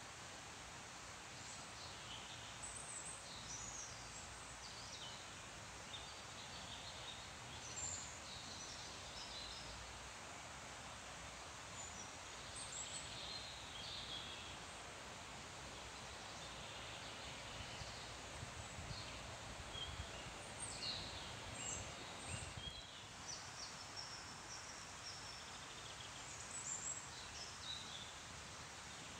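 Several songbirds singing, with short high chirps and trills scattered throughout, over a steady soft hiss of rustling tree leaves.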